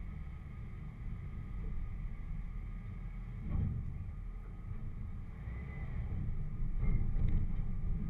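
Four-wheel-drive vehicle's engine running at low trail speed, heard as a steady low rumble, with a few knocks as the vehicle jolts over the rough dirt trail: one about three and a half seconds in and more around seven seconds in.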